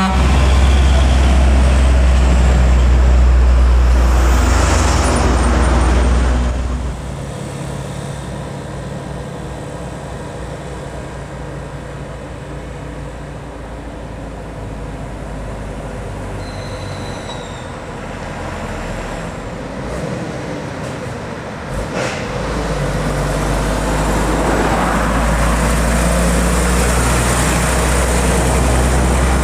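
Heavy diesel trucks labouring up a steep grade under load, their engines droning loudly as they pass. One goes by in the first six seconds, and a second builds up from about three quarters of the way in. Between them there is quieter traffic noise.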